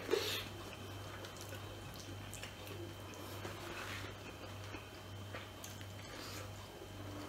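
Close-up mouth sounds of eating by hand: a loud wet suck as the fingers are licked just at the start, then faint lip smacks and chewing clicks over a steady low hum.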